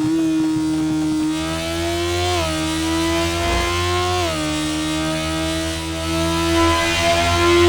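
Sport motorcycle engine pulling under acceleration. Its pitch climbs steadily and falls sharply twice, about two and a half and four and a half seconds in, as it shifts up a gear, then holds at an even cruise.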